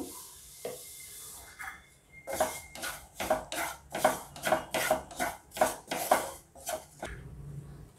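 Wooden spatula stirring and scraping grated coconut around a nonstick frying pan, in quick strokes about three a second. A soft hiss in the first two seconds comes before the strokes.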